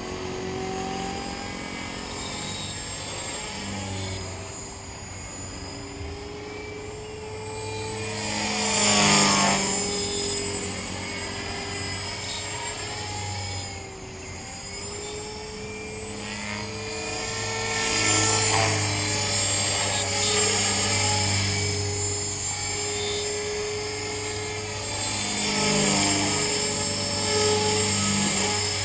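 T-Rex 450 electric RC helicopter in flight: the steady high whine of its 3500kv brushless motor, gears and rotor blades, swelling louder and fading as it passes close and moves away, about three times. A squeal from a bad main bearing runs through the sound.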